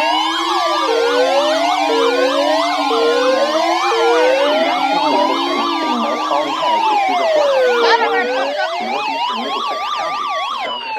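Several sirens sounding at once: a slow wail rising and falling about every four seconds over faster yelping sweeps, with a lower wavering tone that drops out about two-thirds of the way in.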